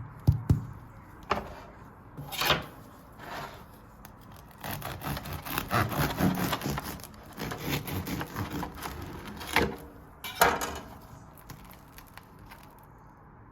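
Serrated bread knife sawing through a crusty sourdough loaf, in irregular back-and-forth strokes with the crust crackling, thickest in the middle stretch.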